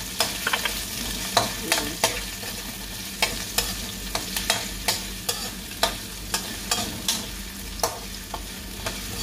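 Onions and garlic sizzling in hot oil in a wok, stirred with a metal spatula, which scrapes and clicks against the pan at an uneven pace of about two or three strokes a second.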